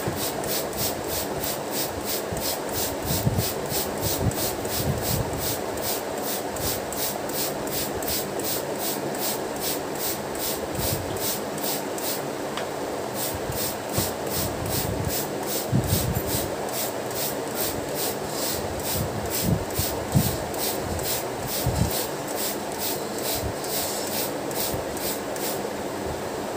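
Hand trigger spray bottle misting a chocolate sponge cake layer to soak it: short hisses repeat about twice a second, with a few soft knocks among them.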